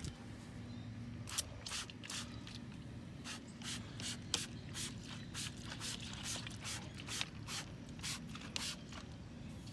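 A trigger spray bottle of tire dressing squirting onto a tire in quick, short sprays, about three a second, starting about a second and a half in.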